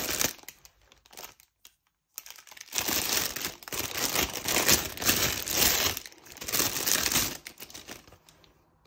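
Clear plastic wrapping and small plastic bags of diamond painting drills crinkling as they are handled, in irregular bursts with a pause about a second in and a lull near the end.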